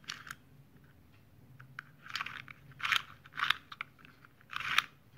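Toothed plastic Beyblade ripcord being pushed through a launcher, ratcheting in several short rasping bursts.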